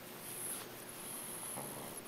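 A sleeping pet snoring: soft breaths in a quieter stretch between louder snores.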